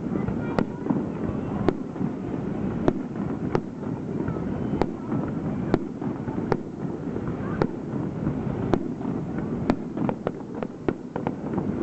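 Aerial firework shells bursting, with sharp bangs about once a second and a quicker run of reports near the end, over a steady background din.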